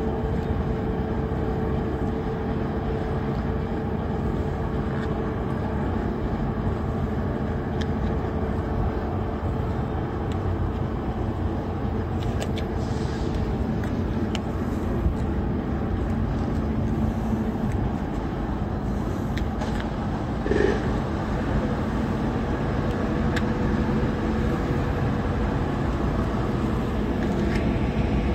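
A 20-ton air-cooled process chiller running: a steady compressor hum under an even rush of air from the condenser fans, with a couple of brief knocks midway.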